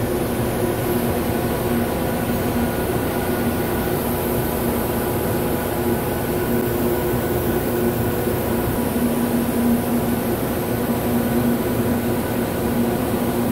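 Steady hum of a machine shop, machinery and ventilation running, with a few steady tones in it.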